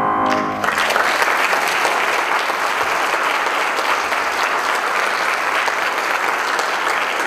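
The final chord of a Shigeru Kawai grand piano rings out briefly, and about half a second in, audience applause breaks out and carries on steadily.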